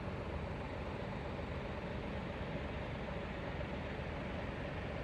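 Steady low rumble of an idling vehicle engine, even throughout with a faint hum.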